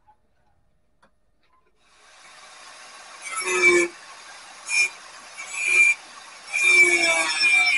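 A tool working steel in four uneven strokes over a steady hiss, each stroke carrying a high ringing tone, the last and longest near the end.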